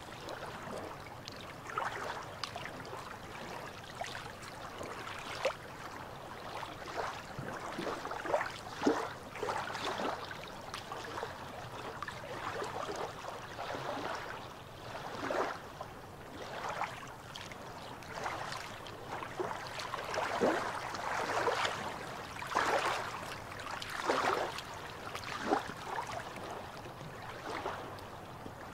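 Small waves lapping and splashing against shoreline rocks, in irregular sloshes every second or so over a steady wash of water.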